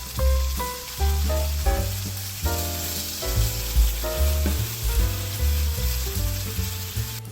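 Food frying in hot oil in a pan: a steady sizzle that cuts off abruptly near the end, with background music underneath.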